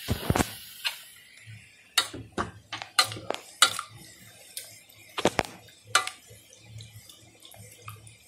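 A cooking utensil clinking and knocking against a pan of vermicelli, a string of sharp, irregular strikes about every half second to a second.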